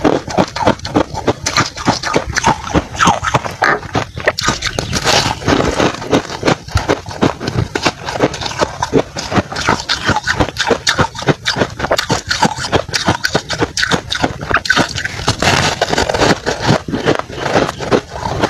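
Crunching and chewing of freezer frost in the mouth, close to a clip-on microphone: a dense, fast, irregular run of crisp crunches that keeps going throughout.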